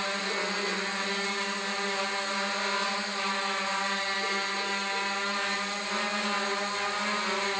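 DJI F550 hexacopter hovering, its six motors and 8x4.5 propellers giving a steady, even buzzing hum with a thin high whine above it.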